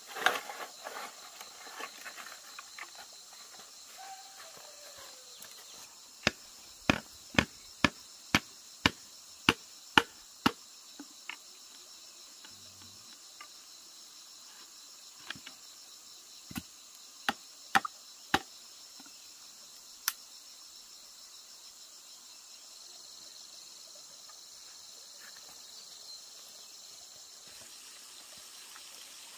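A steady, high chorus of crickets. Over it come sharp knocks: a run of about ten at roughly two a second from about a fifth of the way in, then a handful of scattered knocks.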